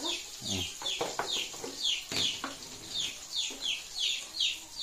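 A bird peeping over and over: short high notes that fall in pitch, about two or three a second. A few low knocks and clicks come in the first couple of seconds.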